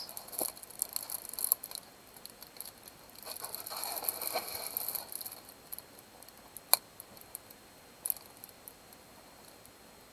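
Plastic film on a diamond painting canvas crinkling and rustling as the canvas is handled and opened out, with a few sharp clicks, the loudest about two-thirds of the way through.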